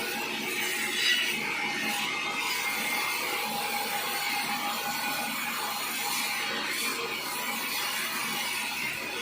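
Sawmill saw running through an acacia log: a steady grinding noise with a faint whine, with one brief louder scrape about a second in.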